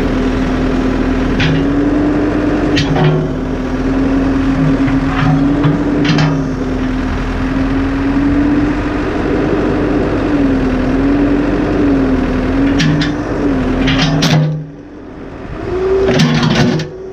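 Backhoe's diesel engine running with a wavering hydraulic whine that rises and falls as the boom and bucket are worked, and several sharp knocks and cracks as the bucket strikes and smashes an alarm clock. The sound drops away suddenly near the end, then builds again.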